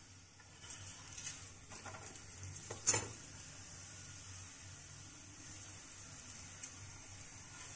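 Aloo paratha sizzling faintly on a hot tawa while a metal spatula scrapes and taps against the griddle as the paratha is flipped, with one sharp clank about three seconds in.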